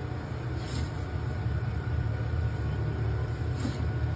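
Steady low mechanical rumble of running equipment, with two brief soft swishes, one near the start and one near the end.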